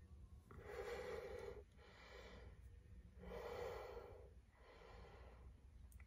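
A person breathing heavily through the nose with the mouth held shut, holding back a burp after chugging soda. Two stronger breaths come about a second in and near the four-second mark, with fainter breaths between.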